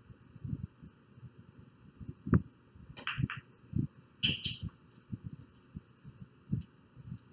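Pool cue striking the cue ball with one sharp click about two seconds in. A few fainter clicks of billiard balls knocking together follow within the next two seconds, over soft low thuds.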